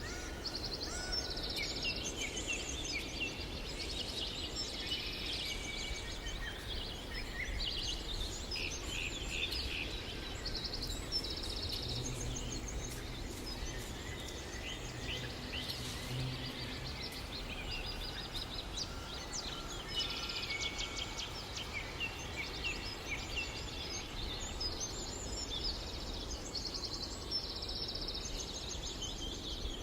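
Several songbirds singing at once, a dense mix of chirps, trills and short repeated phrases, over a steady low background rumble.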